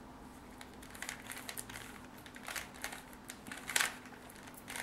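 A Rubik's cube's plastic layers being twisted by hand: irregular clicks and clacks as the faces turn, with one louder clack a little before four seconds in.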